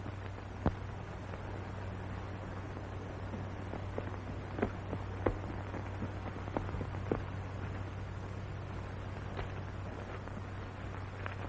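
Steady low hum and hiss of an old optical film soundtrack, with faint short clicks scattered irregularly through it.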